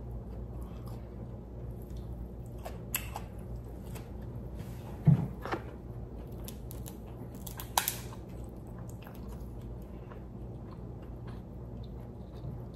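Close-up eating sounds: chewing crab meat, with a few sharp snaps and clicks as Dungeness crab shell is broken apart by hand, the loudest about five seconds in and another near eight seconds.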